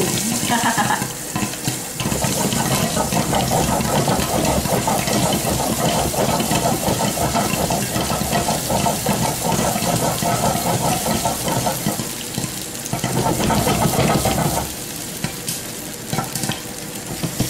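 Popcorn kernels popping and sizzling in hot coconut oil inside a lidded pan, while the pan is shaken back and forth over the gas burner. The shaking stops about three-quarters of the way through, leaving a lighter sizzle with scattered pops.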